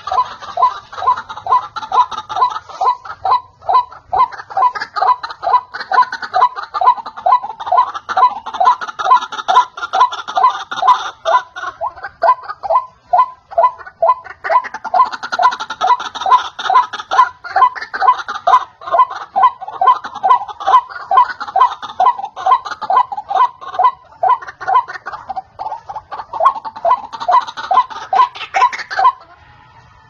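White-breasted waterhen calling: a loud, fast series of repeated notes, about three a second, that breaks off briefly near the end.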